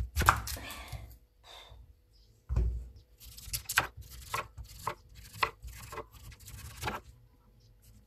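Kitchen knife cutting the skin off a raw sweet potato against a wooden cutting board: a series of short, sharp cutting strokes, about two a second, with a dull knock on the board about two and a half seconds in.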